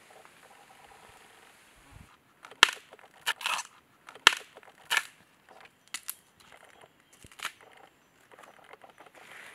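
Husk layers being torn and snapped off a fresh bamboo shoot by hand: a run of sharp cracks and short rips, about half a dozen, starting about two seconds in.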